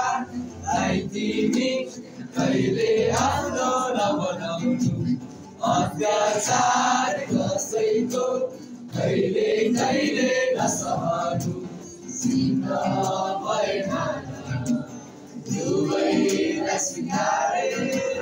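Two boys singing a Nepali song together to a strummed acoustic guitar, phrase after phrase with short breaks between.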